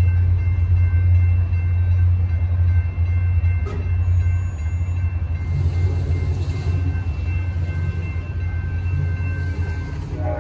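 Steady low rumble of the ACE commuter train just past the crossing, with the grade-crossing warning bell ringing faintly. The bell dies away near the end as the crossing gates go up.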